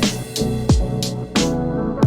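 Background music: an electronic, hip-hop style beat with kick drum and snare hits over sustained pitched tones.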